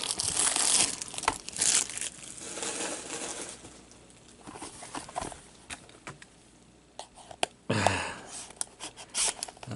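Plastic shrink wrap crinkling and tearing as it is slit and pulled off sealed boxes of hockey cards. The rustling is loudest in the first two seconds, then eases, with a few sharp clicks and crackles near the end.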